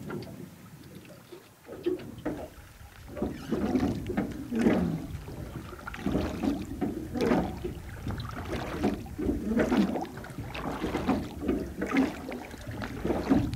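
Water slapping and splashing against the hull of a small boat on the river, in irregular slaps about every half second to a second.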